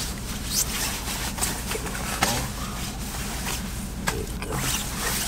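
Steady low drone of a vehicle interior, engine and road noise, with scattered small clicks and rustles.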